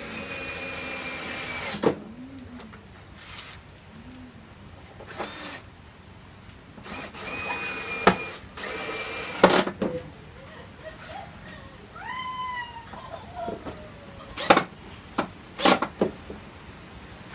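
Electric drill driving screws into a speaker box in several short runs, its motor whine speeding up and slowing down, with sharp knocks in between as the cover panel is fastened.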